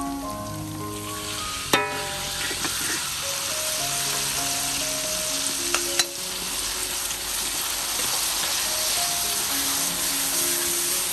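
Minced garlic and green onion sizzling in hot oil in a wok, stirred with a spatula; the sizzle swells about a second and a half in. Two sharp knocks, one early and one midway.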